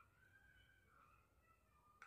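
Near silence: faint room tone, with a few faint high tones in the background.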